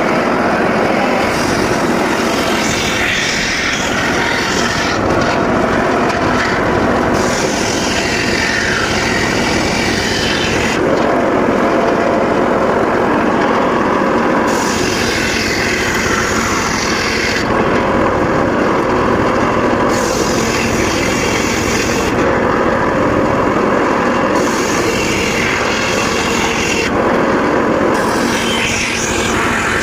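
Circular saw running steadily while cutting mahogany, with a higher, hissing cutting sound that comes and goes every few seconds.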